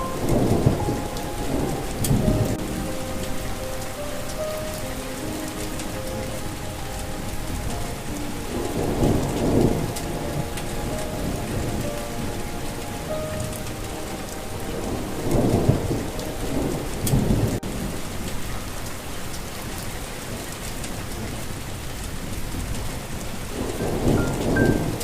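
Steady heavy rain with thunder rolling in four times, each rumble swelling for a second or two. A soft melody of held notes sounds faintly underneath.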